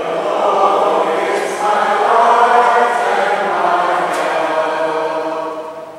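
A group of voices singing a liturgical chant with long held notes, swelling about two seconds in and tailing off near the end.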